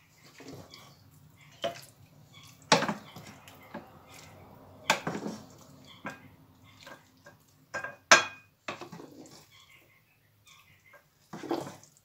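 A wooden spoon scraping and knocking against a frying pan and a plate as chicken and mushroom sauté is spooned from the pan onto the plate: a string of irregular clatters and taps with soft wet plops of food, the loudest knock about eight seconds in.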